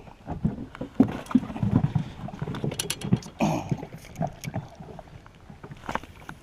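Irregular knocks, thumps and clatter aboard a small fishing boat.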